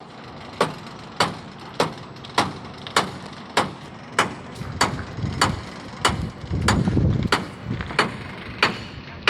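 Hammer striking metal in a steady rhythm, about fourteen blows, each with a short metallic ring. A low rumble swells and fades partway through.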